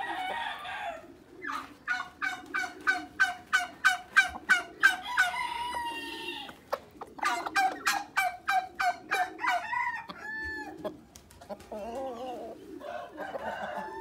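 Chickens clucking in quick runs of short, evenly spaced calls, about three a second, with a drawn-out call like a crow at the start and a short, clear note about ten seconds in.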